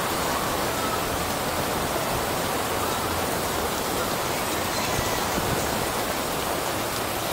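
Heavy tropical rain pouring down, a steady hiss of falling water.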